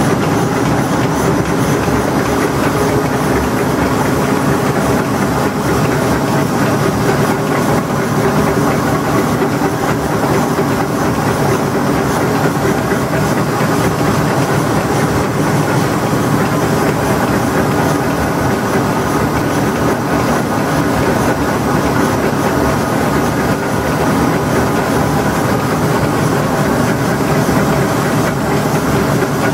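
Six-colour flexographic printing press for plastic film running: a steady, loud mechanical din of turning rollers and drive, with a steady hum of several tones.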